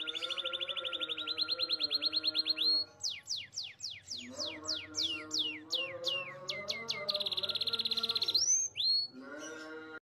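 Green canary singing a rolling song. A rapid, even trill of repeated notes for about three seconds gives way to a series of quick downward-sweeping whistles, then a second fast trill and a couple of rising slurs near the end.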